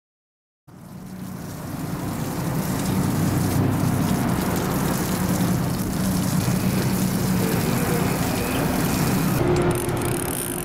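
Steady low engine drone with wind and water noise, fading in about a second in; the sound changes near the end.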